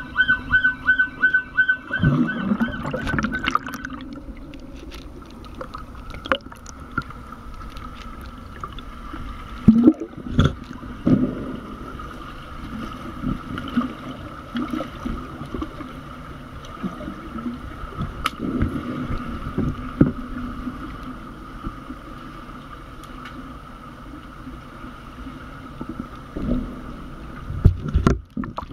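Underwater hockey game heard underwater in a pool: a steady hum with scattered thuds, knocks and bubbling from the players. For the first few seconds a pulsed electronic beeping sounds, typical of the referees' underwater buzzer stopping play.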